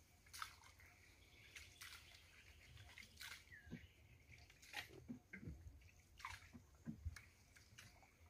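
Faint, irregular drips and small splashes of water from a paddle as a small boat is paddled along, about two a second, over near silence.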